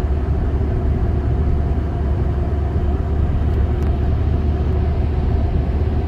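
Road and engine noise inside a moving car's cabin: a steady low rumble with a faint even hum over it.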